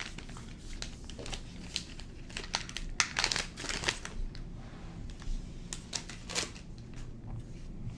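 Foil trading-card booster pack wrapper crinkling as it is pulled open by hand, in irregular crackles throughout.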